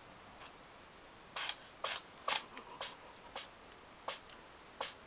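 A cat sneezing in a rapid fit: about seven short, sharp sneezes roughly half a second apart, starting about a second and a half in.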